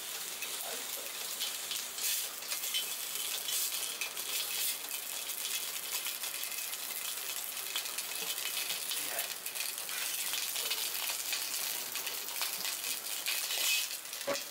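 Two slices of fatty meat searing in a hot, nearly dry steel wok over a gas flame, sizzling steadily with fine crackling as the fat spits. Near the end there is a louder metal knock as tongs reach into the wok.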